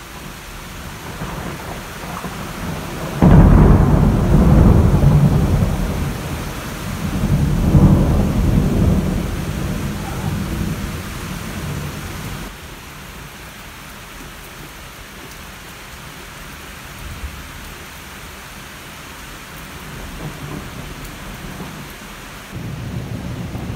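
Heavy rain falling steadily, with a sudden loud thunderclap about three seconds in that rolls on as rumbling, swells again a few seconds later and dies away. Another roll of thunder begins near the end.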